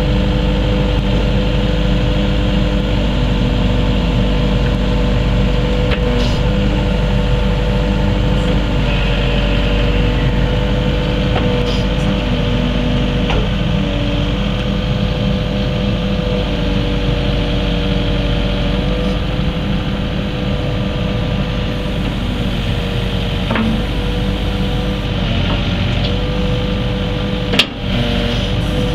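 Kubota KX080-3 excavator's diesel engine running steadily while its hydraulics work the boom, arm and bucket, the hydraulic whine stepping up and down in pitch every few seconds as the controls are moved. A sharp click near the end.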